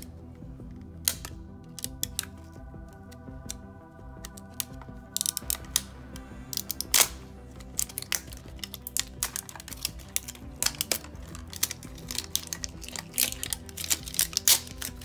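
Cardboard box and plastic packaging being handled and opened by hand: scattered clicks, taps and crinkles, growing busier about five seconds in, with one sharper crackle shortly after. Background music plays underneath.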